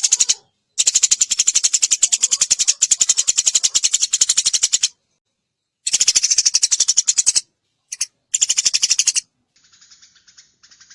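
Eurasian tree sparrow (burung gereja) giving a fast, tight chattering trill of high chirps, about a dozen a second. It comes in bouts of a few seconds with short breaks, and turns fainter near the end.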